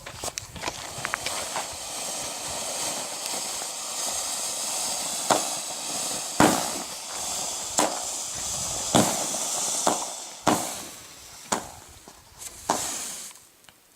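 Kaleidoscope consumer firework spraying with a steady hiss that starts just after the beginning and stops near the end. About seven sharp pops go off at roughly one-second intervals through the second half.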